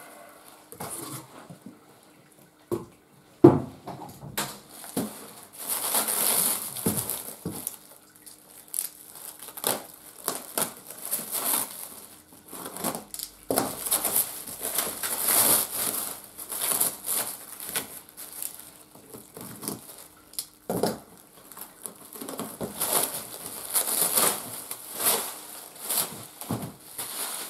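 A parcel wrapped in crinkly plastic film and crumpled paper padding is handled and turned over. The wrapping crinkles and rustles, with scattered knocks, the loudest a sharp knock about three and a half seconds in.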